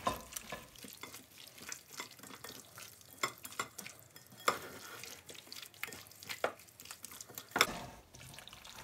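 A gloved hand mixing raw boneless chicken thigh pieces into a wet spice marinade in a glass bowl: an irregular string of short wet squishes and clicks, one louder near the end.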